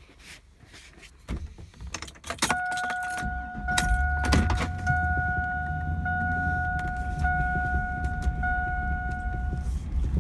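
Pickup truck being started: door knocks and keys jangling, then a steady electronic warning chime comes on about two and a half seconds in. The engine starts about four seconds in and idles under the chime, and the chime stops just before the end.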